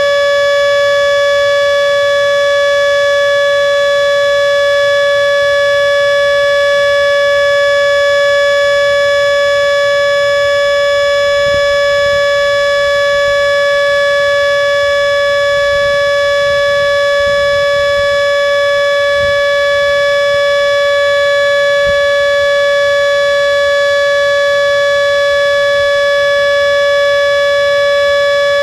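Mini Model 2 siren sounding one loud, steady tone that holds its pitch without rising or falling, partway through its three-minute monthly test run.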